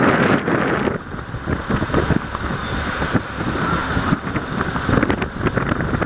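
A KiHa 40 diesel railcar's engine idling while the railcar stands still: a steady, loud rumble with irregular knocks.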